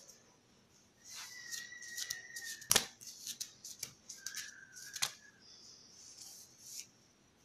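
A child's hair being handled and combed through by hand: a dry rustling with a run of sharp clicks, the loudest a little under three seconds in and another at about five seconds.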